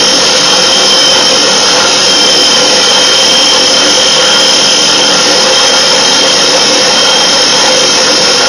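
Drill press running a small spring-tensioned cylinder hone inside a dirt bike engine's cylinder bore, the stones grinding against the oiled wall as the hone is worked up and down. A loud, steady whirring grind with a constant pitch.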